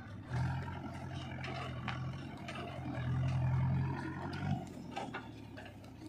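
Mahindra 475 DI tractor's diesel engine running as it pulls a loaded trolley of earth away, with scattered knocks and rattles; the engine note drops off about four and a half seconds in.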